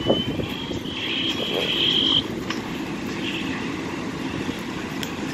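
A large house fire burning with a steady rumbling roar and crackle. A high whistling tone sounds over it for about the first two seconds, then stops.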